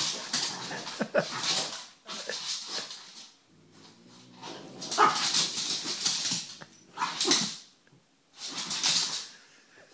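French bulldog whining and grumbling up at a cat, in about six breathy bursts with a short lull near the middle.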